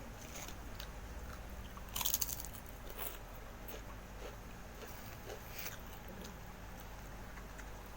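A person biting into crunchy food and chewing it close to the microphone, with one loud crunch about two seconds in and a few smaller crunches after.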